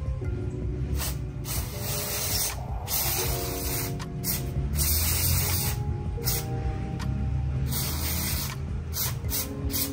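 Aerosol brake cleaner sprayed in a series of hissing bursts of up to about a second each, over background music.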